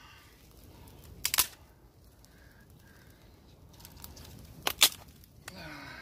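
Small campfire of dry reed stalks, grass and twigs burning, with two sharp pops, one about a second and a half in and one just before five seconds in.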